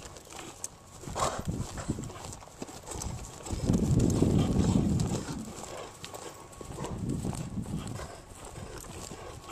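A dog breathing loudly and with effort in rough, noisy breaths, the longest about four seconds in. The breathing is the sign of his breathing problem.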